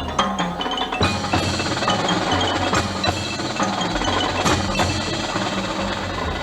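High school marching band playing, with mallet percussion such as marimba, xylophone and bells to the fore, and several sharp accented hits.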